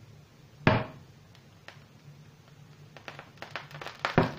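Nonstick frying pan handled on the cooktop: a sharp knock about a second in, then quiet, then a run of light clicks and a second knock near the end.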